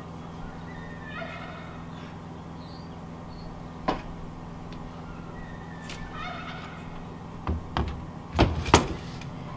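Loud metal thunks and knocks from a stainless steel stovepipe section being handled and fitted into place, clustered near the end, with a single knock about four seconds in. Twice, a few seconds apart, a bird gives a short rattling call, over a steady low hum.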